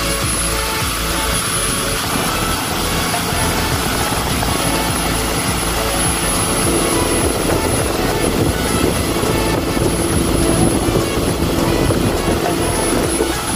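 Towing motorboat's engine running steadily at speed, mixed with the rush of its wake and wind.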